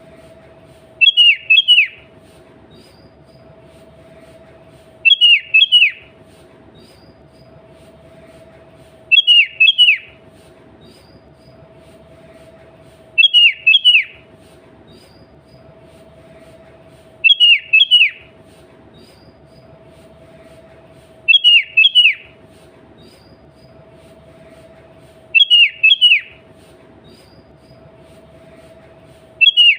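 Sooty-headed bulbul calling: a short phrase of about three quick notes, repeated regularly about every four seconds, over a steady low hum.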